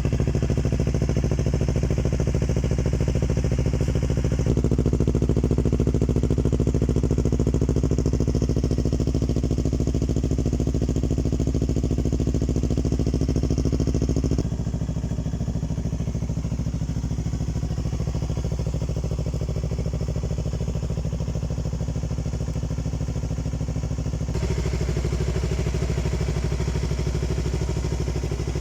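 Yamaha YZF-R3's 321cc parallel-twin engine idling steadily through a Yoshimura aftermarket exhaust, with no revving. Its tone changes abruptly three times.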